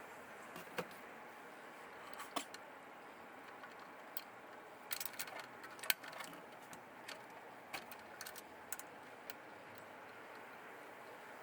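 Scattered light clicks and metallic clinks of small parts or tools being handled, a few at a time with short gaps, over a faint steady hiss.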